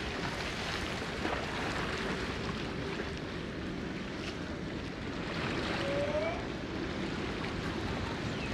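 Seafront ambience: wind on the microphone over the wash of open water, with a steady low hum of boat engines.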